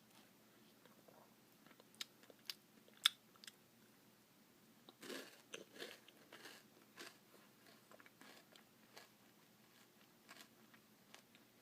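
Faint crunching and chewing of a Blizzard with crispy puppy chow pieces. A few sharp clicks come about two to three seconds in, and the loudest crunching comes around five to seven seconds in.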